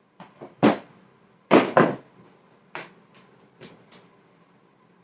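A run of sharp knocks and clunks of hard objects, about seven in all, with the three loudest in the first two seconds and lighter ones after.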